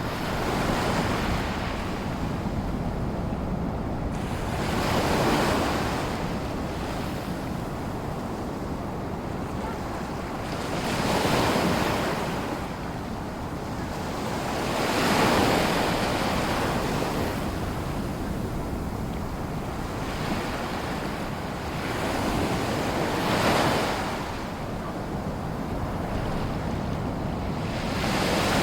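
Gentle sea waves in a lagoon: a steady low wash with small waves breaking and receding every four to six seconds, each swelling up and fading away.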